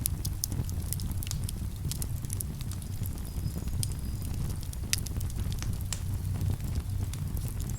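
Campfire crackling, with frequent sharp, irregular pops and snaps over a steady low rumble.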